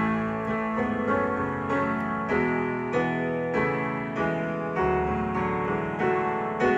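Piano playing a slow hymn-like arrangement, with a new chord or note about every half second.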